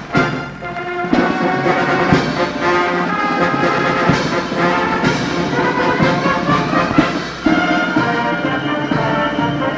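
Band music with brass instruments playing a tune at a steady volume.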